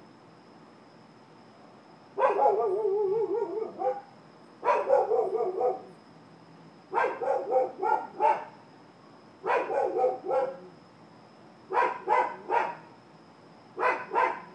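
Dogs barking in short bouts of two to four barks, a bout every two seconds or so. The first bout is more drawn out and wavering.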